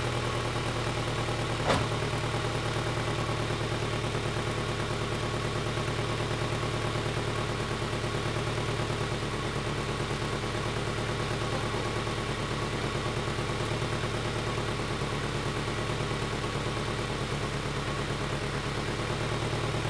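Honda H22A four-cylinder engine idling steadily under the car, still warming up after a cold first start of the day. A single sharp click sounds about two seconds in.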